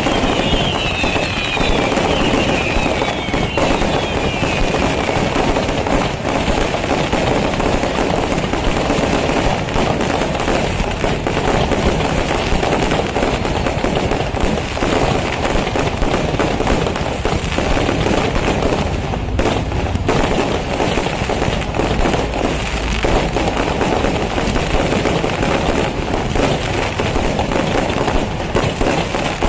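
Traditional Kerala temple fireworks (vedikkettu): a dense, unbroken barrage of crackers going off, bang on bang. In the first few seconds several whistles fall in pitch over it.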